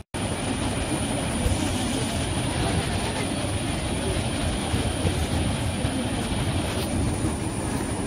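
Steady heavy roar of a large waterfall in full monsoon flow: a dense, even rush of falling water, deepest in the low rumble.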